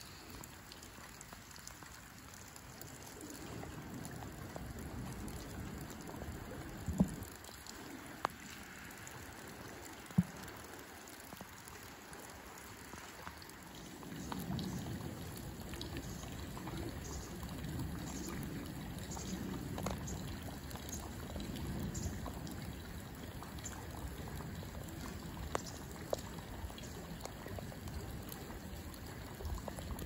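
River water trickling and running, getting louder about halfway through, with a few sharp clicks in the first half.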